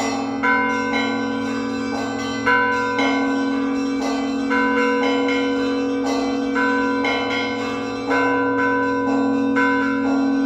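Church bells ringing in a peal: a large bell's sustained hum runs under smaller bells struck in quick rhythmic succession, about two strokes a second.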